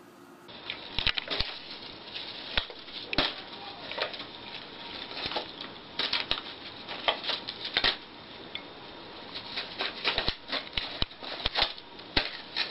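A pet rabbit grabbing and shaking a sheet of paper in its mouth; the paper crinkles and rustles in quick, irregular crackles.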